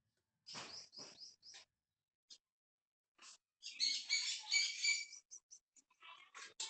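Monkeys giving short, high-pitched squeaking calls in separate bursts, with a louder run of rapid squeals a little past the middle.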